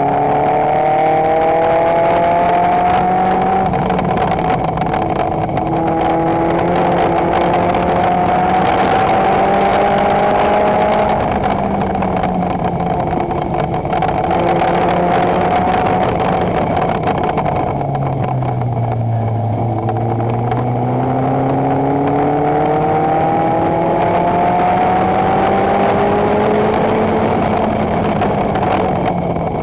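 Toyota 3S-GE four-cylinder engine of a Lotus Seven-style clubman car running hard on track, heard from the open cockpit. The revs climb and fall back repeatedly with gear changes, drop low about two-thirds of the way through, then climb again, over steady wind rush.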